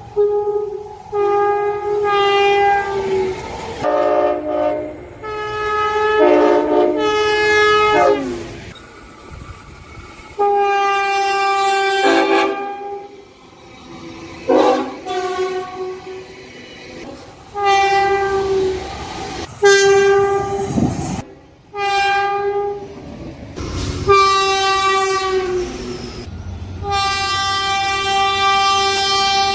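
Tilt Train's town horn sounding about a dozen blasts, short and long, with gaps between; some blasts sound two or three notes together as a chord, and several drop in pitch as they end.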